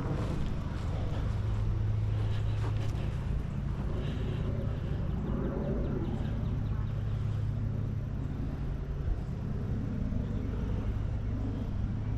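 Steady low rumble of motor vehicles, with a constant low hum throughout.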